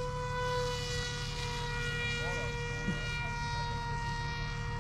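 Electric radio-control model airplane motor running at steady throttle with a high, even whine.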